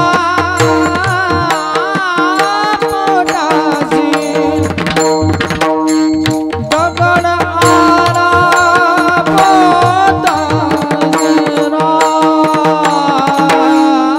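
Instrumental passage of Marathi devotional music: tabla playing a steady rhythm under a melody instrument holding sustained notes.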